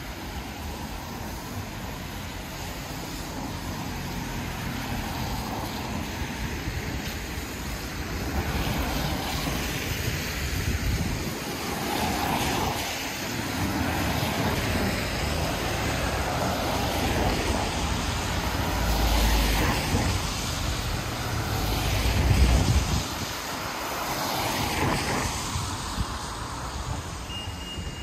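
City street traffic noise: vehicles passing one after another, each swelling and fading, the loudest with a deep rumble a little past two-thirds of the way through.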